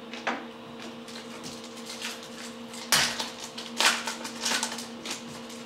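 Topps Chrome football cards handled and flicked through by hand: a run of short flicks, slides and snaps of card stock, the sharpest about 3 and 4 seconds in, over a steady electrical hum.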